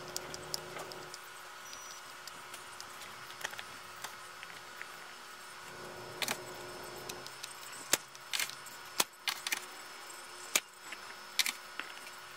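Small clicks and taps of desoldering work on a TV power-supply circuit board: a soldering iron and a three-legged component being worked loose and handled against the board. The clicks are scattered and light at first and sharper and more frequent in the second half, over a faint steady hum.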